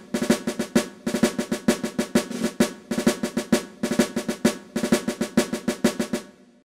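Intro music of rapid snare drum rolls and quick drum strikes, fading out near the end.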